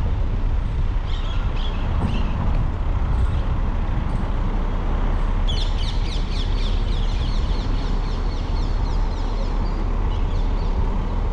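Steady low rumble of a moving vehicle and wind, with birds calling over it. About halfway through, a rapid run of sharp chirps goes on for about three seconds.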